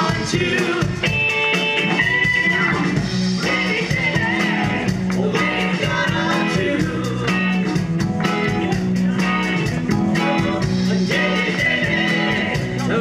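Live rock band playing, with electric guitar to the fore over keyboard and a steady drum beat.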